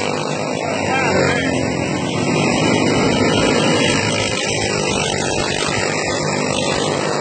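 Several dirt-oval racing karts with single-cylinder clone four-stroke engines running hard as they race past, their engine notes overlapping in a continuous loud buzz.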